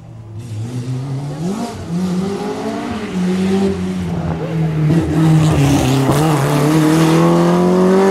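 Rally car engine revving hard under full throttle as the car approaches and passes close by. The pitch climbs and falls back several times with gear changes, and it grows louder toward the end.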